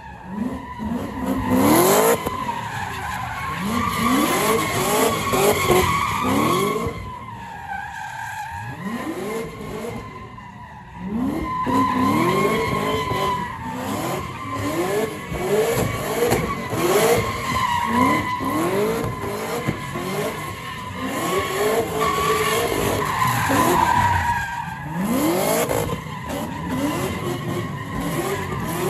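Second-generation Cadillac CTS-V's supercharged V8 revving up again and again as the car spins donuts, its rear tyres squealing steadily. The revs and the squeal ease off briefly about a third of the way in, then pick up again.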